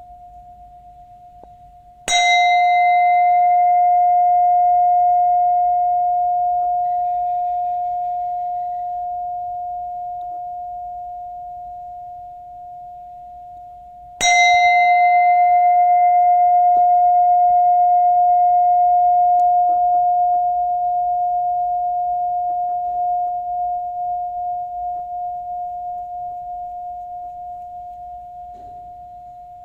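Buddhist bowl bell struck twice, about twelve seconds apart. Each strike rings out in one steady, pure tone that slowly dies away, while its brighter overtones fade within a few seconds. The hum of an earlier strike is still sounding at the start, and the ring wavers as it fades near the end.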